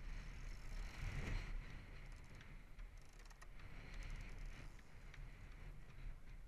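Faint rush of water along a moving catamaran's hull, with small splashes crackling through it and a low rumble underneath, a little louder about a second in.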